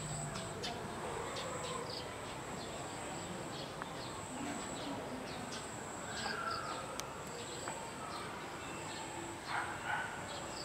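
Garden ambience: a steady high-pitched insect drone throughout, with small birds chirping in short repeated notes, and a couple of louder calls near the end.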